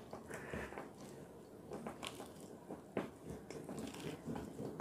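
Hands kneading a soft, sticky banana and lemon bait dough in a steel bowl: faint squishing with a few light clicks.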